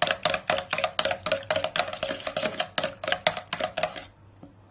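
Wire whisk beating a thin egg, sugar, oil and milk batter in a ceramic bowl: fast, even clinks of the wires against the bowl, about five a second, each with a short ring, stopping about four seconds in.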